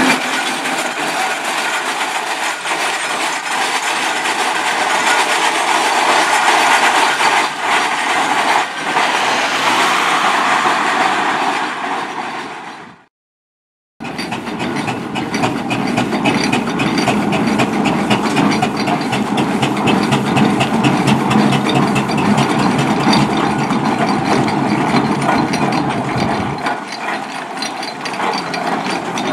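Ruston Proctor steam traction engine on the move: a steady, loud running noise that fades out after about thirteen seconds. A second later it returns as a rapid, rhythmic mechanical clatter as the engine rolls on its steel wheels.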